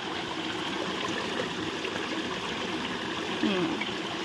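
Stream water running steadily over rock in a small waterfall, a continuous rushing splash.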